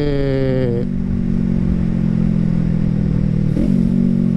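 Yamaha MT-03's 321 cc parallel-twin engine running through a full free-flow aftermarket exhaust while riding. The revs fall over the first second, then hold steady, with a short rise and fall of revs about three and a half seconds in.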